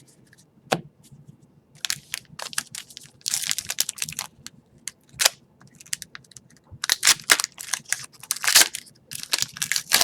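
Foil wrapper of a retail hockey card pack crinkling and tearing as it is opened by hand, in many short scratchy bursts after a single click.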